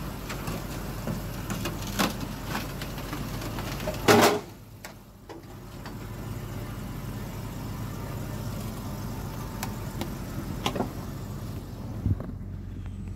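Car engine running at low speed as the car is driven down the ramps off a car-hauler trailer. There is a loud clunk about four seconds in and a lighter thump near the end.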